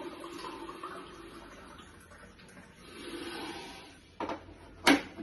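Hot water poured from a stainless steel electric kettle into a ceramic mug, easing off about two seconds in and then running again. Near the end come two sharp knocks, the second loudest, as the kettle is set back down on its base.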